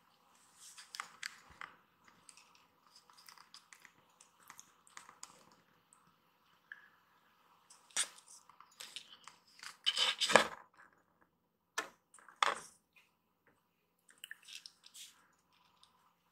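A kitten grooming itself, licking and nibbling at its fur and paws in soft, irregular wet clicks and crackles, with a few louder bursts about ten seconds in and again shortly after.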